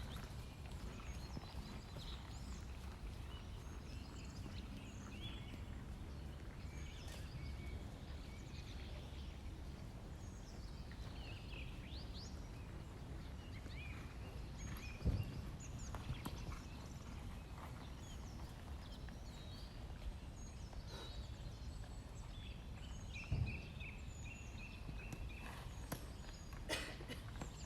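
A horse's hooves working on an arena surface, heard faintly under a steady outdoor rumble of wind-like noise, with scattered high chirps and a few sharper knocks about halfway through and near the end.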